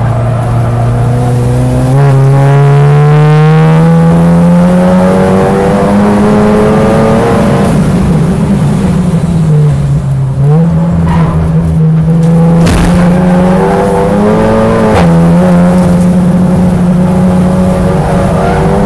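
Saloon race car engine running hard at racing speed. Its pitch climbs steadily for several seconds, dips briefly about halfway through as the throttle comes off, then holds high again. There is a sharp knock about two-thirds of the way in.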